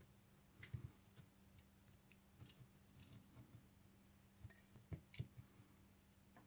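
Faint scattered clicks and taps of small plastic and metal parts being handled: a wiper motor's brush-holder end cap and its carbon brushes worked by hand, a few louder clicks near the end. A faint low steady hum runs underneath.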